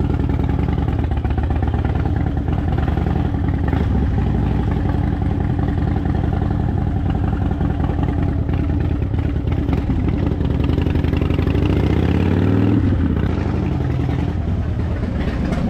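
Harley-Davidson Dyna Fat Bob's air-cooled V-twin engine running loud as the bike rides off, with a rise and fall in engine pitch about twelve seconds in.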